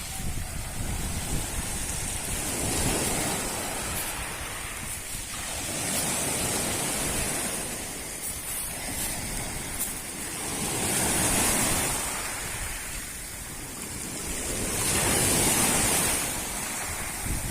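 Sea surf washing ashore, swelling and fading every few seconds, with strong wind buffeting the microphone.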